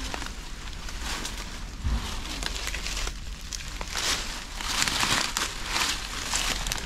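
Dry leaves and undergrowth rustling and crunching underfoot as people push through dense vegetation, in uneven bursts that are busiest in the second half.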